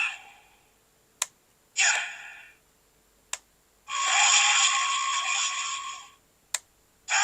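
Ultra Replica Eye Slugger prop toy's built-in speaker playing its recorded sound effects one at a time, each set off by a sharp click of its button: a short effect about two seconds in, a longer one of about two seconds near the middle, and another starting just before the end.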